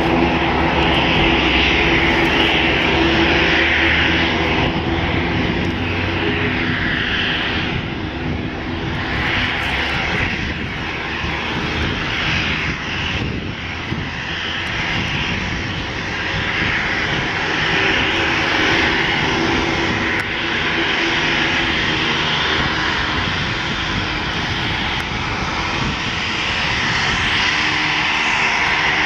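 Twin Garrett TPE331 turboprop engines of a BAe Jetstream 32 running at taxi power: a steady high-pitched engine whine over the drone of the spinning propellers.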